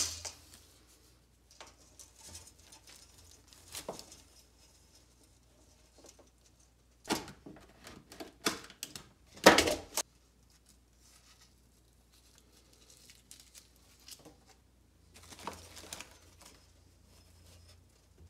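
Rope, tape and tools handled on a wooden workbench: scattered rustles and small knocks, with a sharp knock right at the start. About halfway through comes a louder run of rasping, tearing sounds as painter's tape is pulled off its roll and wrapped around the end of the rope.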